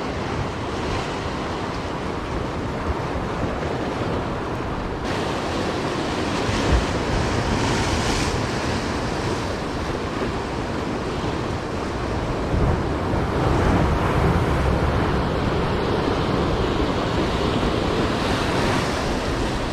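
Ocean surf washing against rocks in rough swells, steady throughout, with wind buffeting the microphone.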